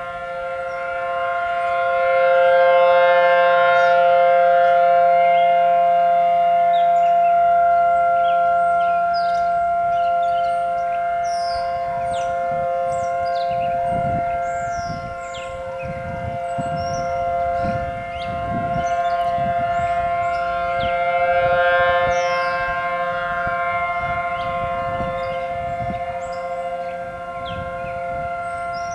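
Outdoor civil defense warning siren sounding a steady alert tone. It holds one fixed pitch without wailing up and down, and swells louder and fades back several times. Birds chirp over it.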